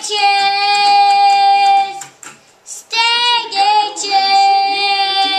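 Young boy singing loudly: a long held note, a break of about a second, then another short phrase that settles into a second long held note.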